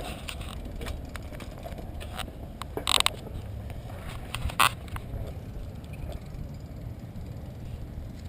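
Bicycles riding along: a steady low rumble of tyres and wind, with a few sharp clicks and short rattles about three and four and a half seconds in.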